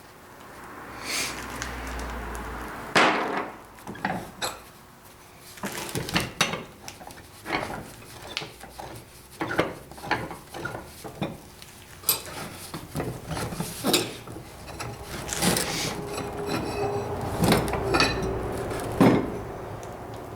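Metal vise parts being handled and knocked together on a workbench: an irregular series of sharp clinks and knocks, some ringing briefly.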